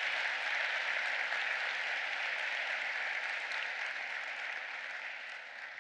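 Audience applauding in an auditorium, a steady clatter of many hands that dies away near the end.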